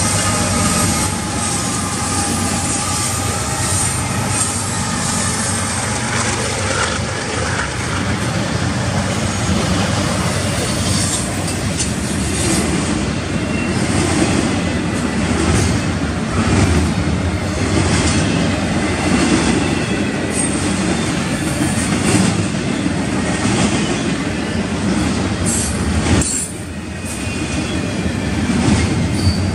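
Union Pacific freight train passing close by. The trailing GE diesel locomotives go past first, then double-stack container well cars roll by with a steady rumble of wheels on rail and repeated clicks as wheels cross rail joints. Thin, high wheel squeal sounds over the first several seconds.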